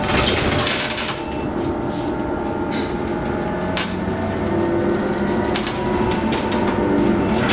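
Cabin noise of a 2015 Proterra Catalyst battery-electric bus under way: steady road rumble with a faint even whine, and scattered rattles and knocks from the bus's interior fittings.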